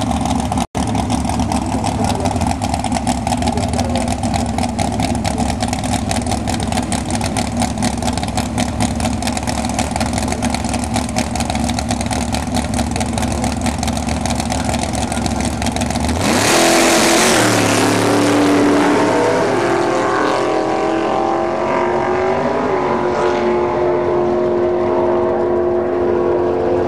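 Motor engines running steadily, with a brief dropout under a second in. About two-thirds of the way through they get louder, then rev, their pitch rising and falling.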